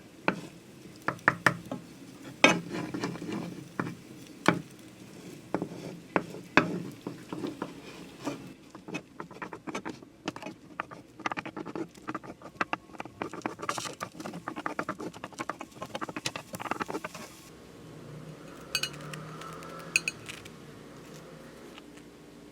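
Kitchen utensils and dishes clicking and knocking in quick, irregular strikes during food preparation, giving way for the last few seconds to a quieter, steadier sound.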